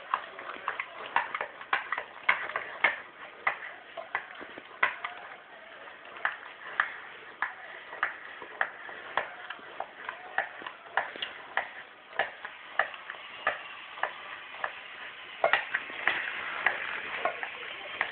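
Dog licking out a metal tuna can on a tile floor: the can clicks and taps against the floor in a steady rhythm, a little under two clicks a second, over soft wet licking.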